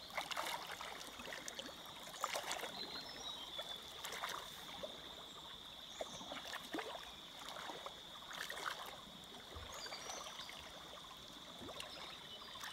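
Shallow water sloshing and splashing irregularly as hands grope along the muddy bottom of a flooded field for snails, with a steady high thin whine behind it.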